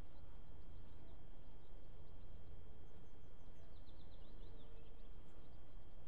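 Steady low rumble of outdoor background noise, with a quick run of short, high bird chirps a little past halfway.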